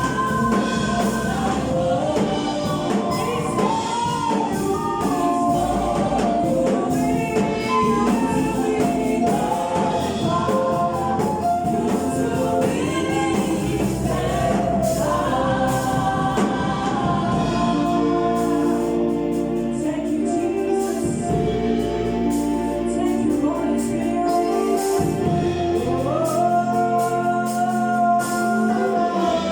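Gospel choir singing with instrumental backing, the voices holding long chords in the second half.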